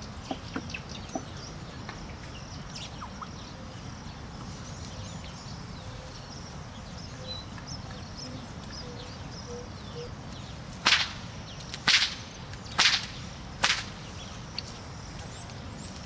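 Four sharp whip cracks about a second apart, driving a yoked pair of plough oxen.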